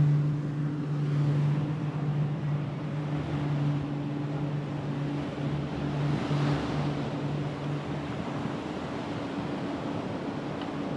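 Surf washing onto a sandy beach, with a wave breaking about six seconds in, over a steady low hum.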